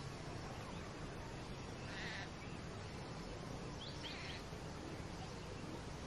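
Bird giving two short, harsh, rasping calls about two seconds apart over steady background noise.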